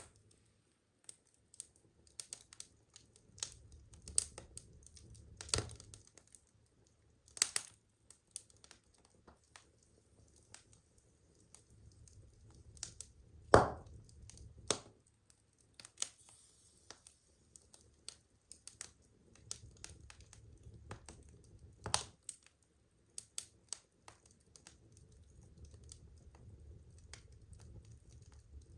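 Burning firewood crackling: irregular sharp pops and snaps, the loudest about halfway through, over a faint low rumble.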